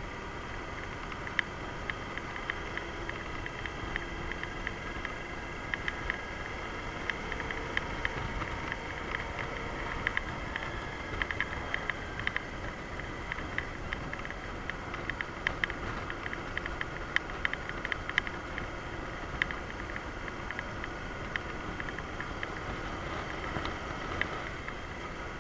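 Yamaha DragStar Classic V-twin motorcycle on the move at a steady pace: an even engine and road noise with frequent sharp ticks scattered through it.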